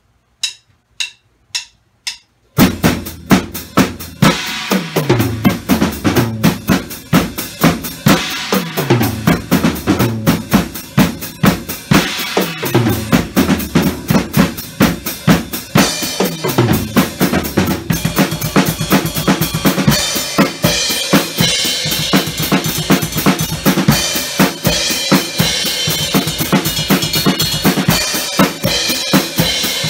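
Four count-in clicks, then a full drum kit playing a busy syncopated jazz-rock groove: sixteenth notes against eighths across bass drum, snare and cymbals. The cymbal playing gets denser about halfway through.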